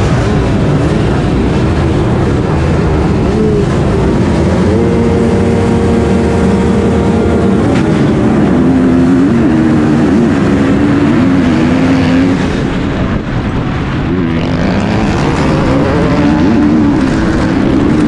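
A field of motocross bikes at a race start, led by the rider's own KTM 250 SX-F four-stroke single heard from onboard: engines held at steady revs, then accelerating hard from about halfway, the pitch climbing and stepping up through gear changes.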